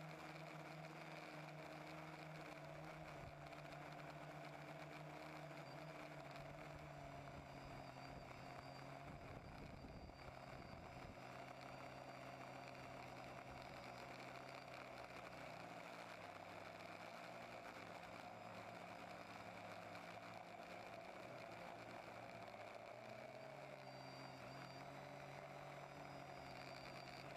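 TBS Discovery quadcopter's electric motors and propellers humming faintly and steadily, the pitch stepping slightly up and down as the throttle changes.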